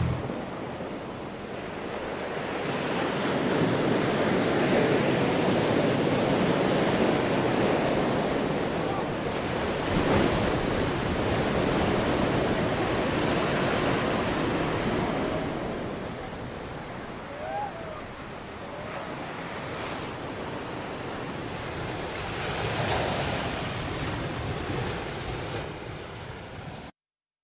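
Ocean surf: waves breaking and washing on a shore, swelling and easing over several seconds at a time. A few faint short chirps come in about two-thirds of the way through, and the recording cuts off abruptly near the end.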